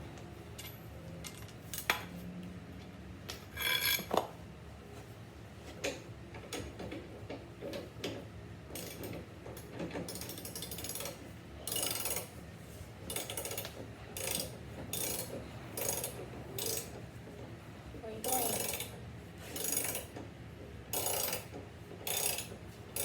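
Metal hand tools clicking and ratcheting in short, sharp bursts, coming roughly once a second through the second half.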